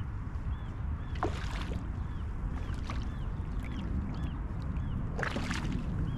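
A large hooked stingray thrashing in shallow water at the shoreline, splashing in short bursts about a second in and again about five seconds in, over a steady low rumble.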